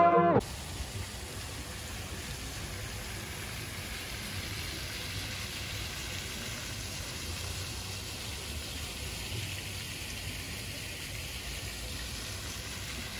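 Steady splashing of small fountain jets falling into a shallow pool.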